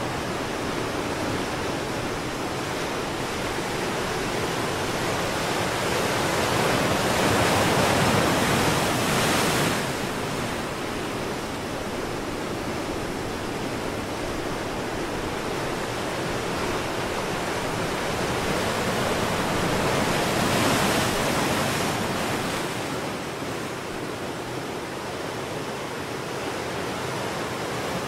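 Steady rushing noise of sea water and surf, swelling louder about eight seconds in and again about twenty seconds in.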